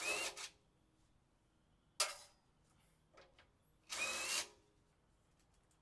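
A power drill fitted with a 10mm socket runs in short bursts as it backs off the 6mm nuts holding the air cleaner housing. There is one burst ending about half a second in, a brief one at about two seconds, and a half-second burst at about four seconds.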